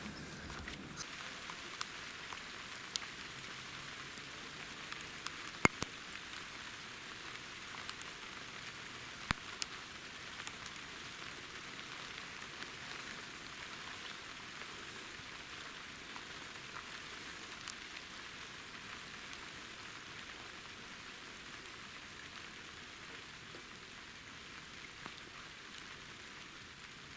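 Steady rain falling: a constant hiss, with a few sharp, louder drop hits in the first ten seconds or so.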